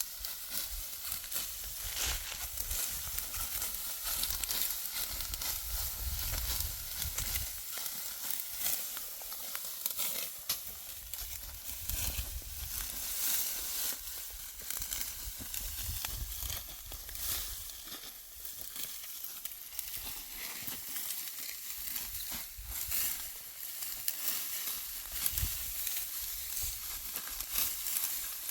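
Continuous dry crackling and rustling, made of many small snaps and crunches, with a low rumble that comes and goes.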